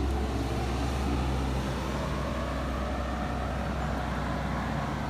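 Small pickup truck's engine running under load as it climbs a dusty dirt road, a steady low drone with the rumble of tyres on gravel.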